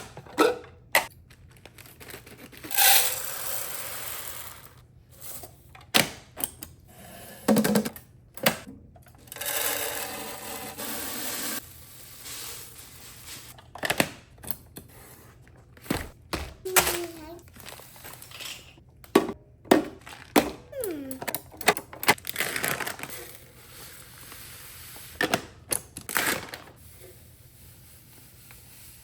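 Dry pantry foods being poured from bags into storage containers, with two longer pours, one about three seconds in and one near ten seconds. Plastic and glass containers and lids clatter and click throughout.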